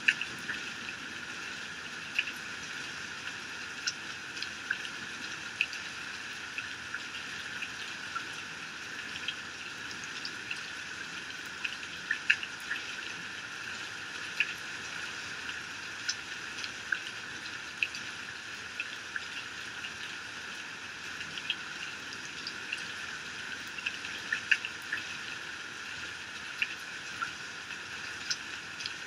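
Heavy rain falling steadily, with many sharp drops striking close by at irregular moments.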